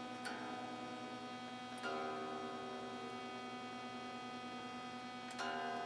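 Electric guitar with Bare Knuckle Warpig humbuckers through a Dual Rectifier amp, single notes picked and left to ring three times while its tuning is checked; the guitar is a little out of tune. A steady amp hum runs underneath, heard through a camera microphone.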